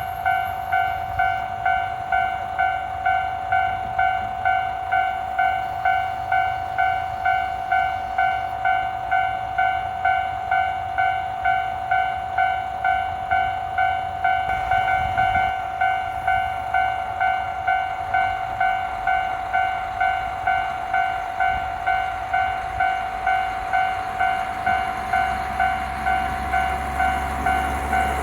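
Japanese level crossing's electronic warning bell ringing steadily, about one and a half dings a second. Near the end a train's low rumble rises as it approaches.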